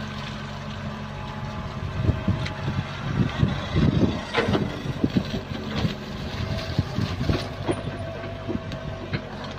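Sumitomo mini excavator's diesel engine running steadily while the bucket hauls a load of wet mud and clods up out of a water-filled trench. From about two seconds in, a spell of knocks and clatter from the bucket and falling lumps rides over the engine, loudest around four seconds in, then eases as the boom swings the load aside.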